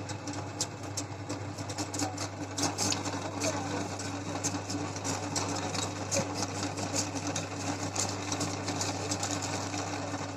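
Electric meat grinder motor running steadily with a low hum, with irregular crackling and clicking from what it is grinding.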